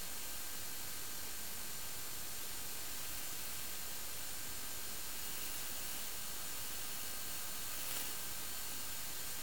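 Steady static hiss, with a few faint steady tones in it and no motor sound that rises or falls, and a brief crackle about eight seconds in.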